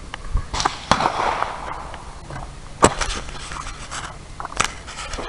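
Four sharp gunshots at uneven intervals, about half a second, one second, three seconds and four and a half seconds in. The second is followed by a short ringing echo.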